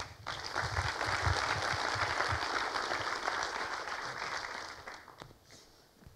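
Audience applauding, starting right away and dying out about five seconds in.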